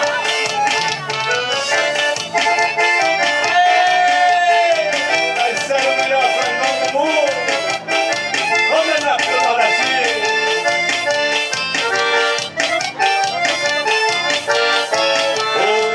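Live forró music: an accordion plays the melody over a steady percussion beat.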